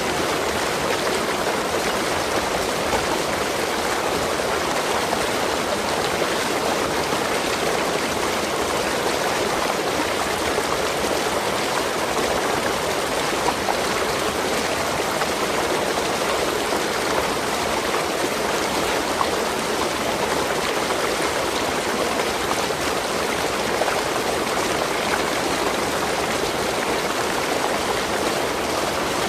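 Waterfall: water falling and rushing with a steady, even splashing.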